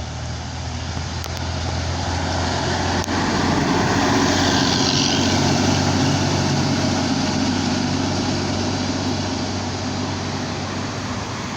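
Tour bus's diesel engine running as it passes through a tight bend, growing louder to a peak about five seconds in and then easing off.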